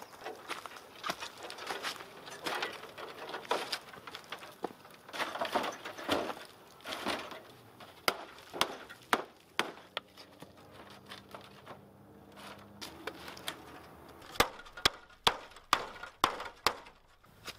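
Stones knocking and clinking against each other and against hard slabs as they are handled, with rustling between. A quick run of sharp knocks comes near the end.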